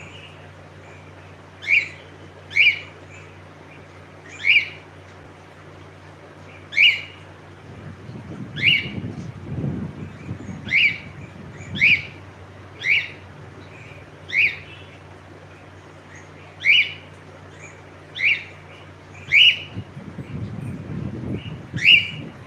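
Pet cockatiel calling with short, sharp chirps repeated every one to two seconds, over a faint steady low hum.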